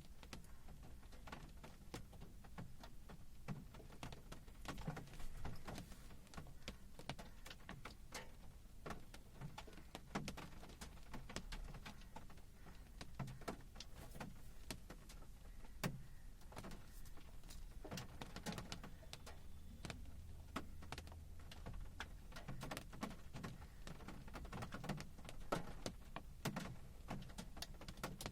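Monsoon rain: irregular drops tapping and dripping on hard surfaces, many small sharp ticks, over a steady low rumble.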